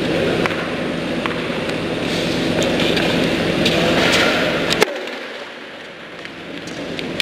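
Tennis balls struck by rackets in a doubles rally, sharp single hits about a second apart over a steady humming background noise; the sharpest hit comes near the two-thirds mark, after which the hum drops away and the sound goes quieter.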